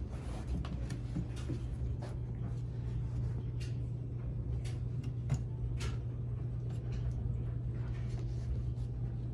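Puppies' paws and claws scrabbling on a wooden whelping box, a blanket and a rug, making irregular soft clicks and scratches over a steady low hum.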